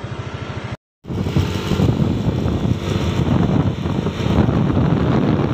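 Yamaha Aerox scooter's bored-up 190cc single-cylinder engine running under way with an even, rapid pulsing. After a short cut about a second in, wind buffeting on the microphone covers most of the engine.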